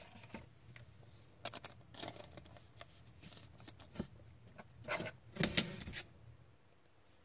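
Hockey trading cards being handled and slid past one another, a scattered run of soft clicks and short rustles from about a second and a half in to about six seconds in.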